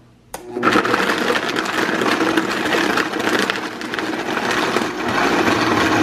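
A high-powered countertop blender clicks on about half a second in and then runs loudly and steadily, crushing ice and bananas into a thick chocolate peanut butter smoothie.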